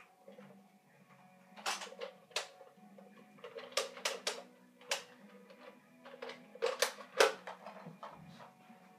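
Irregular sharp clacks and knocks of a Nerf fight: blasters being handled and fired and a player moving about, about a dozen in all, bunched in three clusters, with faint steady tones beneath.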